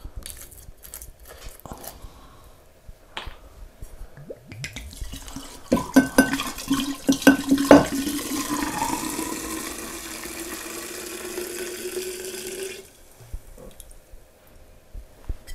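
A few clicks and knocks of the bottle being handled, then, about six seconds in, clear spirit pours from an upended bottle into a large glass jar. The pour is steady, its pitch rising as the jar fills, and it cuts off suddenly about thirteen seconds in.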